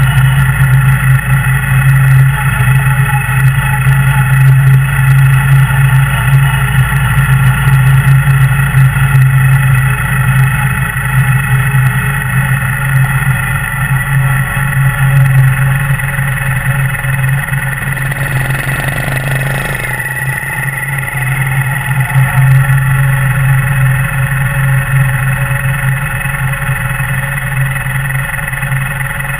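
Steady motorcycle riding noise, the Kawasaki W800's parallel-twin engine with wind and road noise at low traffic speed, mixed with sustained ambient background music.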